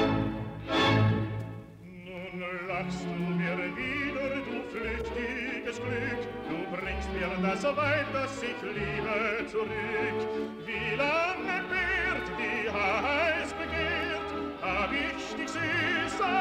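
Operatic singing with heavy vibrato over classical-style music, the voice swooping up and down in pitch in the second half. A short loud burst sounds about a second in.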